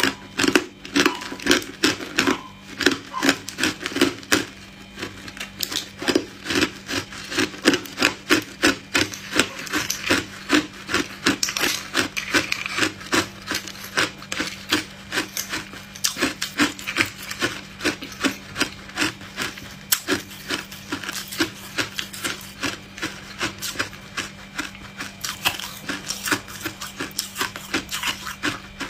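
Hard, clear ice cubes being crunched between the teeth: a fast, steady run of sharp crunches, about three a second.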